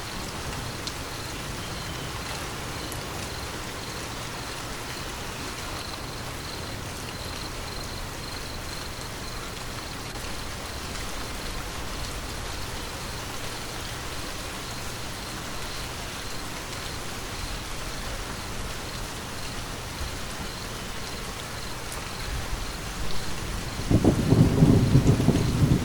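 Steady rain falling, with a rumble of thunder building near the end and becoming the loudest sound at the close.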